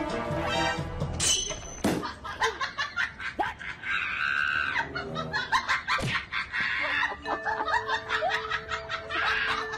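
People laughing, with music underneath and short clicks and knocks scattered through.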